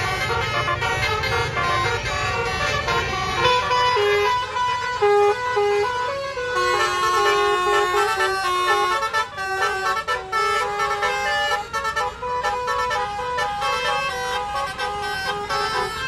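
A tourist bus's telolet basuri horn, a multi-trumpet air horn set playing a quick tune of short stepped notes. The bus's engine runs underneath in the first few seconds.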